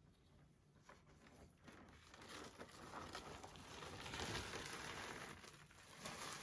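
A wet Reemay polyester sheet being peeled off a soaked paper cover in a water bath: a soft, wet crinkling that starts about two seconds in and grows louder.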